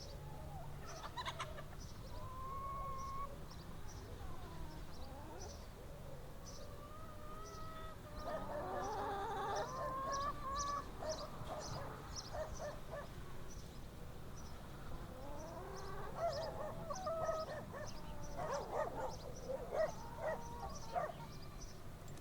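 Chickens clucking and a rooster crowing in a farmyard, the calls coming in two busy spells, with the loudest calls near the end. Short high chirps repeat faintly throughout.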